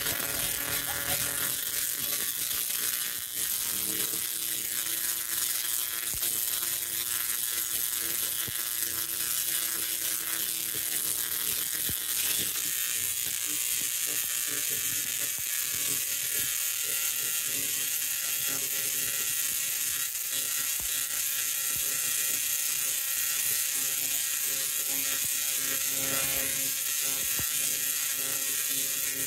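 Tesla coil spark discharges firing continuously: a steady, harsh electrical buzz whose pitch drifts slowly up and down.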